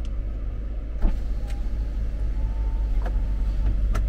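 Inside the cab of a moving empty cargo van: steady low engine and road rumble, with a few light knocks about one, three and four seconds in and faint short squeaks.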